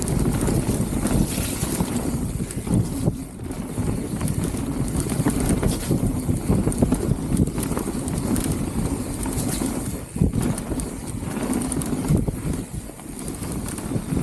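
Mountain bike rolling fast down a muddy dirt trail: a continuous rumble of tyres and wind on the microphone, with frequent irregular knocks and rattles of the bike over rough ground.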